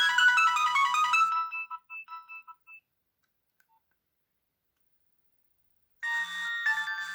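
Nokia 6030 mobile phone ringtones. A short electronic melody opens with a quick descending run of notes and fades out after about three seconds. After a few seconds of silence, another ringtone begins near the end.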